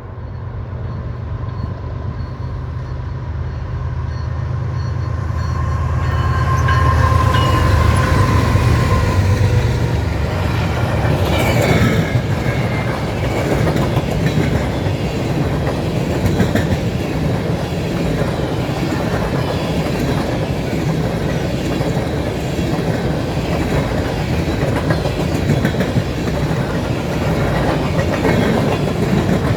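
Diesel locomotives of an empty BNSF unit grain train approaching and passing at track speed, their engine drone building over the first several seconds. Then the empty grain hopper cars roll by with a steady wheel clatter.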